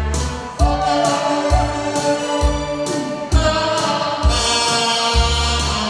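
Saxophone playing a slow Korean trot melody in long held notes with vibrato, over a recorded backing track with a steady kick-drum beat a little faster than one a second.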